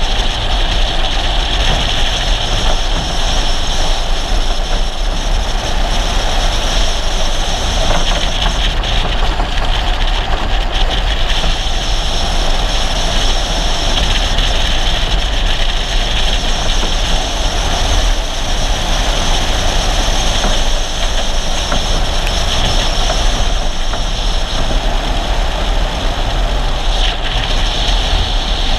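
Steady rush of wind on the microphone and tyre roar from a car driving downhill at speed, an unbroken deep rumble under a hiss.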